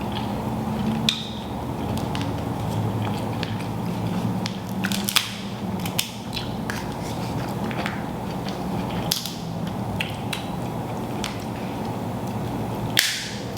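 Eating sounds from a seafood boil mukbang: chewing and crunching with scattered wet clicks and smacks, over a steady low hum.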